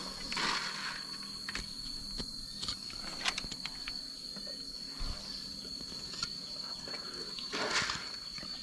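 Hoof knife paring sole tissue away from an abscess in an elephant's foot: two soft scraping strokes, about half a second in and near the end, with a few small clicks between, over a steady high-pitched whine.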